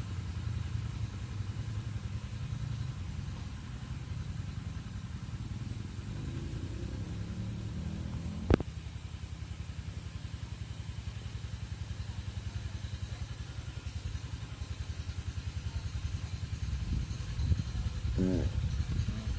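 A small engine running steadily with an even low pulsing, and a single sharp click about eight and a half seconds in.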